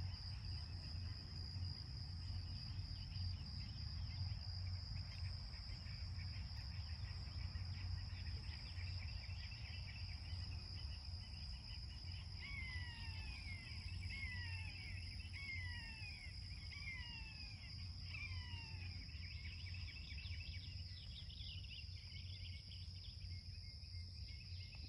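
A steady high insect chorus of crickets over a low outdoor rumble. About halfway through, a bird gives a series of about six short whistled notes, each sliding down, roughly one a second.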